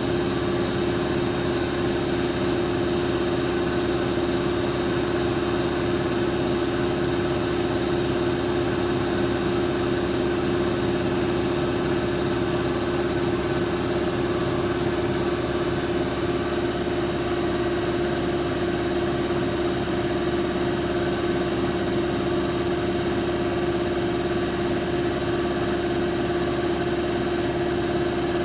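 Machine lathe running steadily: an even mechanical hum with a steady high whine above it.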